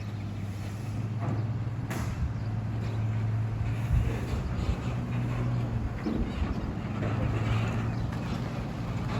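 Heavy diesel engine running at a steady speed, with a brief sharp knock about two seconds in.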